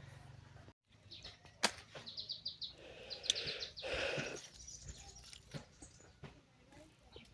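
Birds chirping: several quick trills of rapidly repeated high notes in the first half, with a few sharp clicks and rustling.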